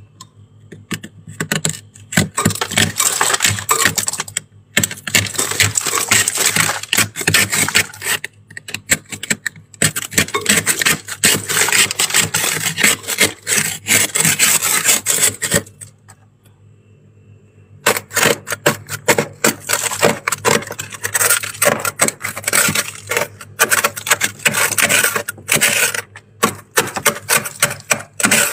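A plastic scraper scraping thick frost off a freezer's inner wall in runs of rapid strokes, broken by short pauses and a two-second stop a little past the middle. A low steady hum runs underneath.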